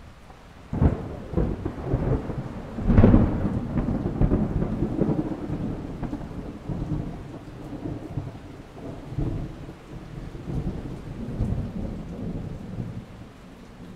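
Thunderstorm: a sudden thunderclap about a second in and a louder one about three seconds in, followed by a long low rumble that slowly fades, with steady rain underneath.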